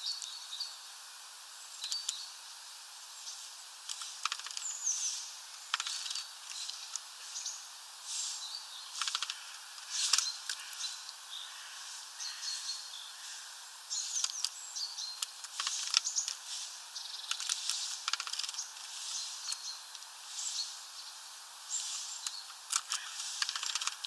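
Small songbirds chirping in short, frequent bursts, with sharp ticks and taps among the calls, over a steady hiss.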